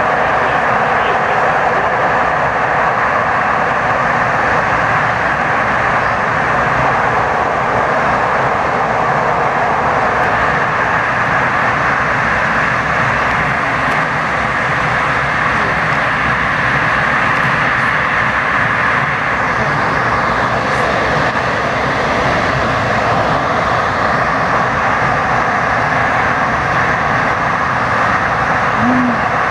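DART light rail train running at speed through a tunnel, heard from inside the car: a steady, loud noise of wheels on track and running gear that does not let up.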